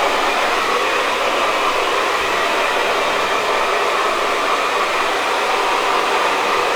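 Steady rushing air noise from an electric blower running without a break.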